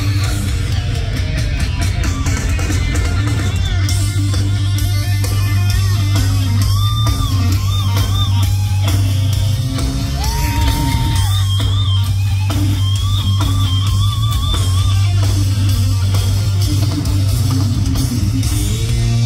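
Heavy metal band playing live through a loud PA: a distorted electric guitar solo of bent and wavering notes over bass and drums, with a booming low end.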